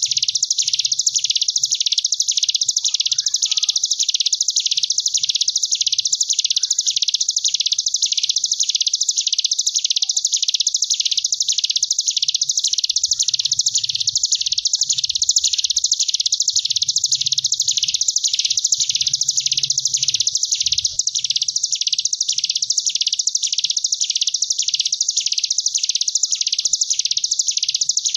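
Ciblek gunung (a mountain prinia) singing its 'ngebren' song: an unbroken, buzzy, wasp-like trill. It swells and eases in regular waves about one and a half times a second without a pause.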